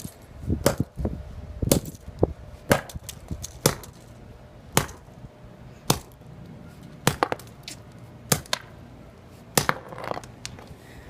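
Repeated sharp blows smashing a flip phone: about fifteen hard impacts, roughly one a second, some in quick pairs.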